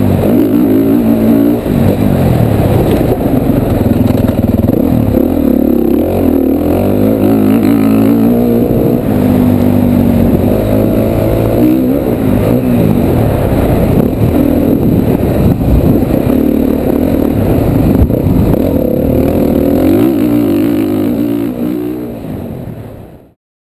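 Honda CRF450 four-stroke single-cylinder dirt bike engine under hard riding on a motocross track, its revs rising and falling again and again with throttle and gear changes, heard from the rider's helmet. The sound fades out near the end.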